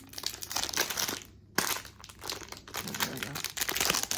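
Crinkly blind-box toy packaging being handled and torn open, with a short pause about a second in that ends in a sharp click.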